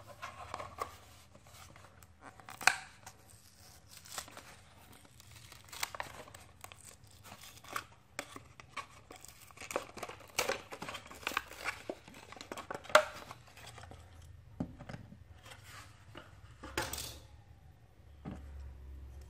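A Hot Wheels blister pack's plastic bubble and cardboard backing being torn open and crinkled by hand. Irregular crackles and sharp snaps run throughout, the loudest a few seconds in and again past the middle.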